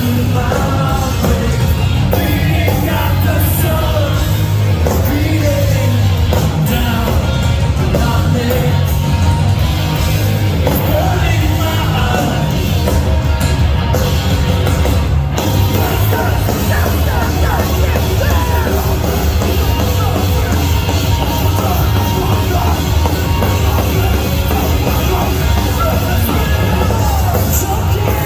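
Heavy rock band playing live through a loud PA, with drums, distorted guitars and bass, and yelled and sung vocals. The playing is dense and continuous, with a strong low end.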